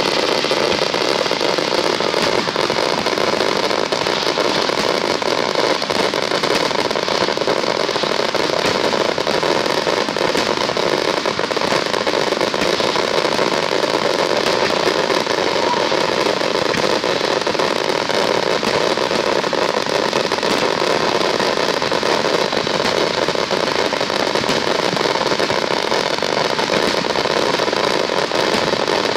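Finale barrage of aerial fireworks (a starmine): overlapping shell bursts and crackling stars merge into one dense, unbroken noise at a steady level.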